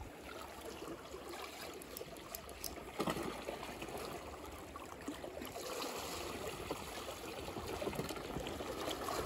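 Seawater lapping and trickling gently against the shore rocks, with a few faint clicks.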